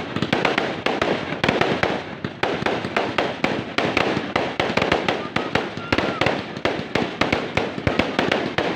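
Fireworks going off in a rapid, continuous crackle of many sharp pops.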